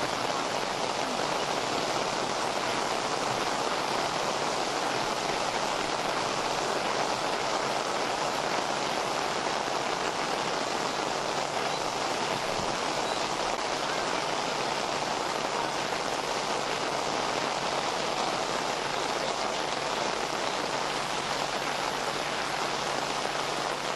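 A steady, even rush of water that holds unchanged throughout.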